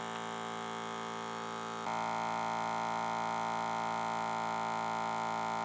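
12-volt tyre compressor running steadily as it inflates a remounted wheel, a constant electric hum with many even overtones. It gets louder and brighter about two seconds in.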